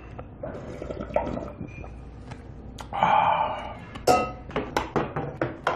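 Cold naengmyeon broth drunk from a brass bowl, with a loud breathy sound lasting about a second near the middle. Just after that, the brass bowl is set down on a stack of bowls with a ringing clang, followed by a few light clinks.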